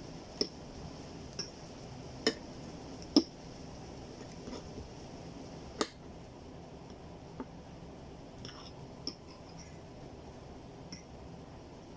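Cutlery clinking against dishware while chow mein is eaten: a handful of sharp, separate clinks a second or more apart, the loudest a little after three seconds in, over a steady low hiss.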